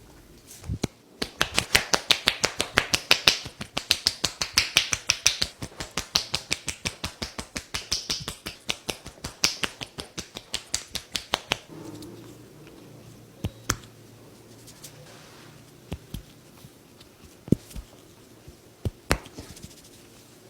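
A fast, even run of sharp taps or clicks, about six a second, that stops about twelve seconds in. After it come a few single clicks at long gaps.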